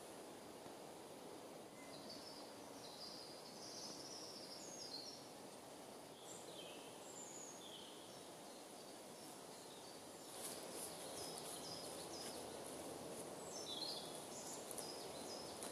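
Faint woodland birdsong: many short, high whistled phrases, some sliding down in pitch, over a low steady outdoor hiss that grows a little louder about two-thirds of the way through.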